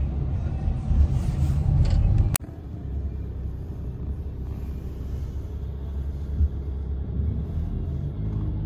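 Low, steady rumble of a vehicle in motion. It breaks off sharply about two and a half seconds in and carries on somewhat quieter.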